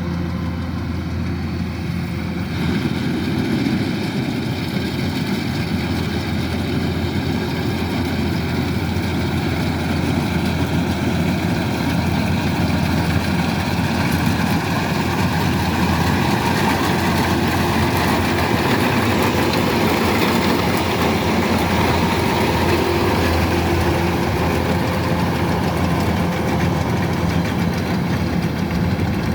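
Kubota DC-105X combine harvester running steadily: the diesel engine and the threshing machinery make a continuous drone that grows louder about two and a half seconds in.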